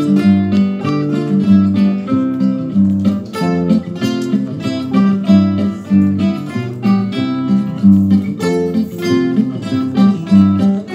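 An ensemble of acoustic guitars playing a piece together: plucked notes and strummed chords in a steady, lively rhythm.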